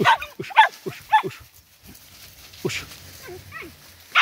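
Vietnamese native hunting dog giving short yelps that fall in pitch, about six of them spaced unevenly, while on a scent.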